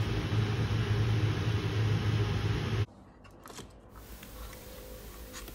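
A steady low rumble under the animated title, cutting off abruptly a little under three seconds in. Then quiet room tone with a few faint clicks.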